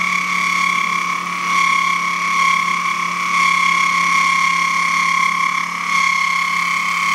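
Home-built mini milling machine, driven by an Emco Unimat SL1000 brushed motor, running with its end mill cutting a slot in a metal lock faceplate: a loud, steady high-pitched whine.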